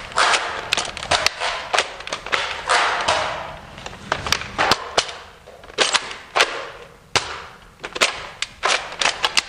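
Nerf foam-dart blasters firing again and again: a string of sharp, irregular snaps and clacks, several shots a second at times, with brief hissy rustles between them.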